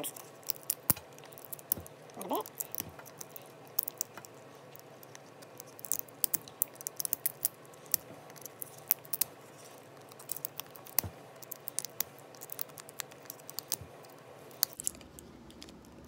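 Needle-nose pliers pulling 3D-printed nylon support material out of a printed nylon latch in chunks. The sound is a run of small, irregular clicks and snaps, several a second.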